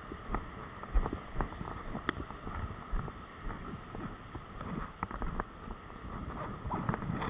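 Wind buffeting the microphone in uneven gusts, with scattered light clicks and knocks.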